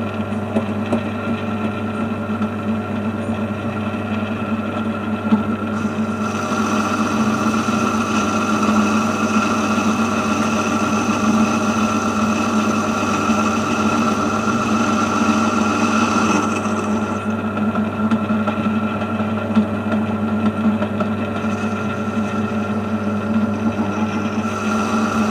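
Metal lathe running steadily, its motor and gearing giving an even hum. From about six seconds in to about sixteen seconds, and again near the end, a higher hiss joins it as the tool cuts the aluminium bar.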